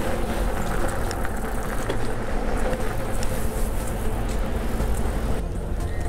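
Steady low rumble of wind and road noise while riding a Super73 RX e-bike, with a few faint clicks. The higher hiss drops away suddenly near the end.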